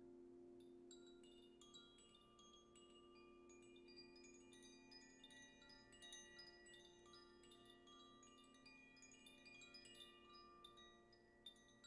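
Cylindrical hand-held wind chime swung by hand, sounding a soft, continuous shower of quick, overlapping bright ringing notes over a steady low drone.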